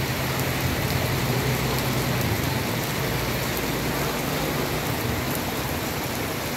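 Heavy rain pouring onto a wet street and pavement, a steady dense hiss. Underneath, a motor scooter's engine idles as a low hum that fades out about halfway through.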